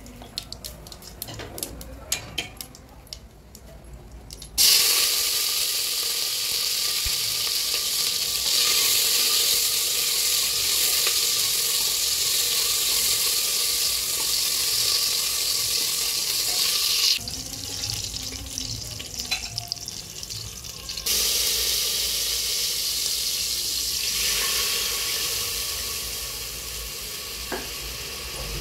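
Faint crackling of cumin seeds in hot oil in a pressure cooker. About four and a half seconds in, a sudden loud sizzle starts as vegetables go into the hot oil of the tempering, and it keeps sizzling steadily while they are stirred. It eases for a few seconds after the middle, then flares up again and settles toward the end.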